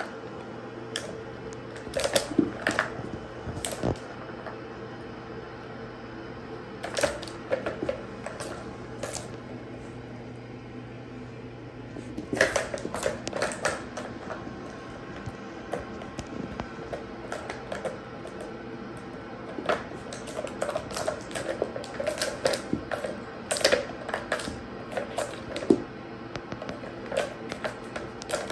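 Plastic balls rattling and clicking around the tracks of a three-tier plastic ball-track cat toy as kittens bat at them, in irregular bursts of clatter with quieter gaps between.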